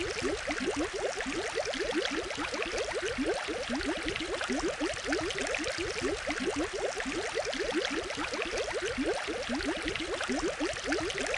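Aquarium water bubbling and gurgling steadily: a dense run of small bubble sounds, each a quick rising blip, over an even trickling hiss.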